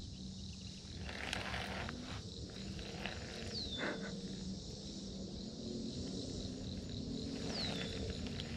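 A steady, pulsing chorus of insects chirping, with a short downward-sliding whistle heard twice, about four seconds apart.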